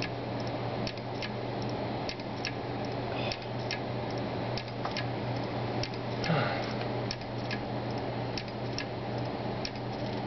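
Seagate Barracuda 1TB hard drive running with a steady low hum and loud, irregular clicking, several clicks a second. The owner says the noise doesn't sound normal for a brand-new drive.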